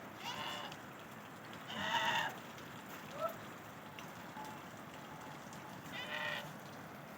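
Sheep and goats of a shepherd's flock bleating: three wavering bleats about half a second each, the middle one loudest, over a steady hiss.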